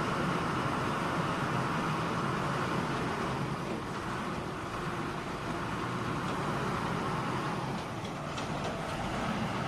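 Diesel engine of an Escorts hydra pick-and-carry crane running steadily while it works a lift.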